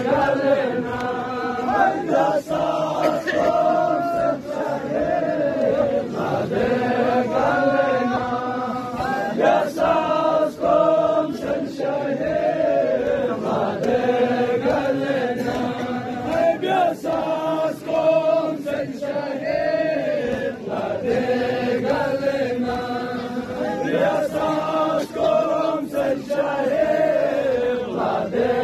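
Voices chanting a Balti noha, a Shia lament, in a steady group chant, with sharp beats struck at irregular intervals of about a second.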